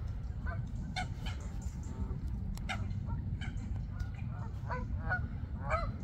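Waterfowl calling: a run of short calls, several coming close together near the end, over a steady low rumble.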